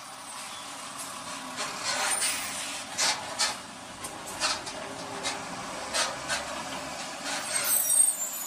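Slow heavy truck traffic as a dash cam hears it: a steady rushing road noise broken by a string of sharp clicks and knocks, with a brief high squeal near the end.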